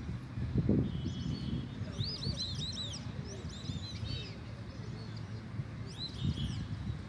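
A small bird chirping: a quick run of short arched high chirps about two seconds in, and a shorter run near the end, over a steady low background rumble.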